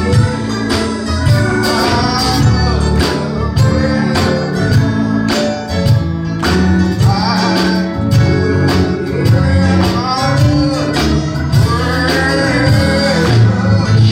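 Live gospel music from a church band, with bass and drums keeping a steady beat under a gliding vocal line.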